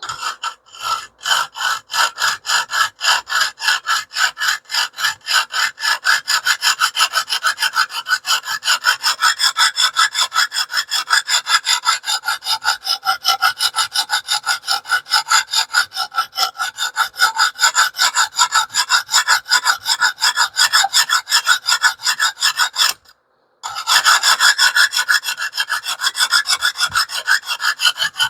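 Sharpening stone of a TS Prof Kadet Pro guided sharpener stroked rapidly back and forth along a steel cleaver's edge, an even rasping scrape about three strokes a second, working up a burr. The strokes break off for under a second a little before the 23-second mark and then resume.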